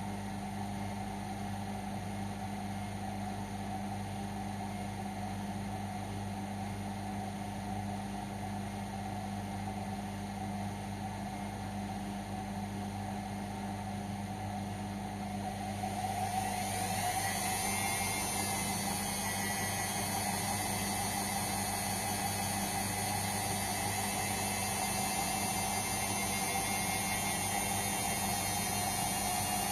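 Indesit washing machine humming steadily; about halfway through, a whine rises and levels off and the machine runs louder as the drum motor speeds up, typical of the spin at the end of the cycle.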